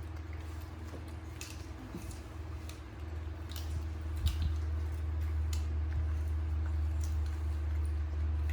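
A pet chewing Indian jujube fruit: several short, sharp crunches and wet squishes scattered over a few seconds, over a steady low hum.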